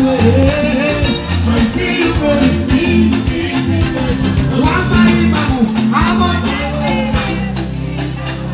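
Live band music with bass guitar, drums and a male singer's vocals, played loud over the stage sound system.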